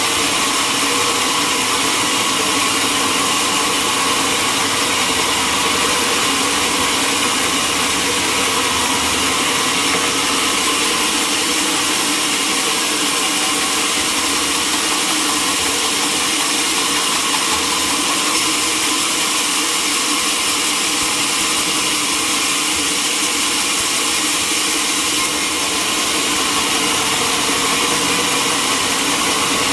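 Sawmill saw running steadily while sawing mahogany logs, a constant mechanical drone with a high hiss and no let-up.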